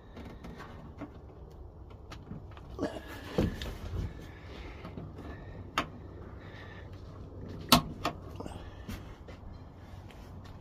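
Hands working in a car's trunk, refastening the rear sunroof drain tube and nearby fittings: a handful of scattered sharp plastic clicks and a couple of dull knocks, the sharpest click about three-quarters of the way in.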